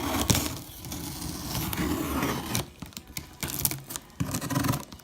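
Packaging being opened by hand: wrapping crinkling and tearing, with a few sharp clicks near the start, then shorter rustles and scrapes.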